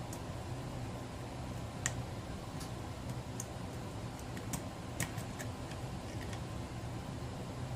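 Light, irregular metallic clicks of a lock pick working the pin stack inside a Kwikset pin-tumbler lock cylinder, a handful of separate ticks as pins are lifted and set.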